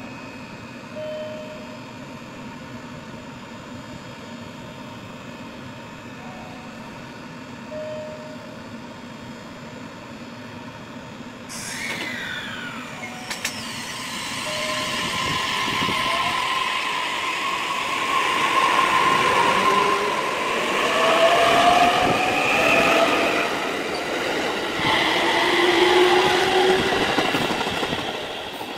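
Electric train running on curved track: a quiet steady hum for the first dozen seconds, then the rumble of wheels on rails builds and stays loud, with squealing tones from the wheels on the curve.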